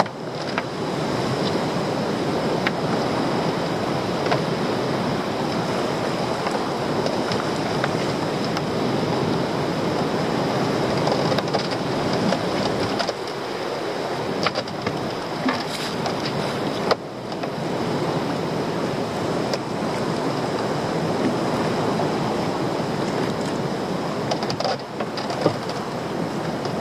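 Sea wash and wind around a small open fishing boat: a steady noisy rush of water against the hull and wind on the microphone, with a few brief knocks partway through.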